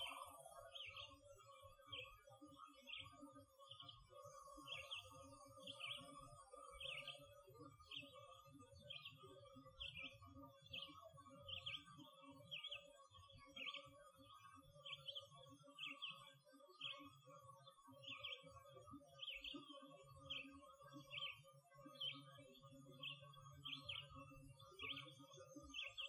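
A songbird repeating one short high note over and over, evenly, a little more than once a second. It is faint, over a low rumble and a faint steady hum.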